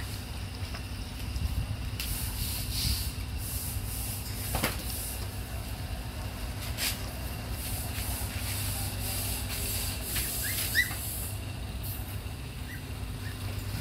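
A mother dog and puppies lapping and slurping watery food from a metal basin, with scattered wet clicks and smacks over a steady low hum. A few brief high squeaks come about ten and a half seconds in.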